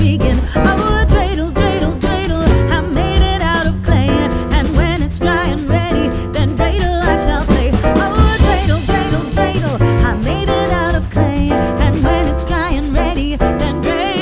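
Background music: a song with a singing voice over instruments, with a steady beat.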